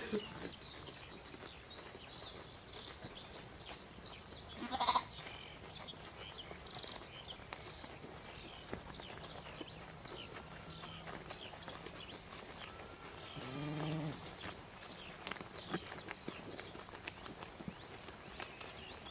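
Farm livestock bleating twice, a short call about five seconds in and a lower, longer one near fourteen seconds, with small birds chirping throughout.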